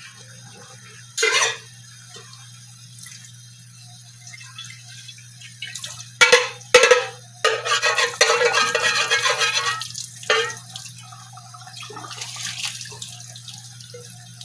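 Water splashing into a kitchen sink in short gushes, with a louder, denser stretch of about two and a half seconds near the middle. A steady low hum runs underneath.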